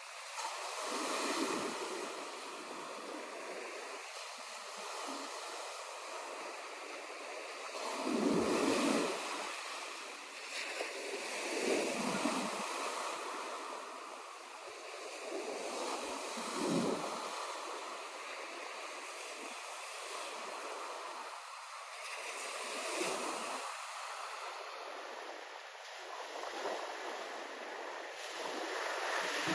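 Sea surf on the shore: waves breaking and washing in one after another, a surge every few seconds over a steady hiss of water.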